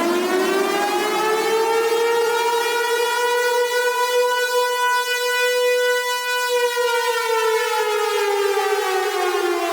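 Civil-defence warning siren sounding one long wail: it is still rising in pitch at the start, holds steady through the middle, then slowly falls away near the end.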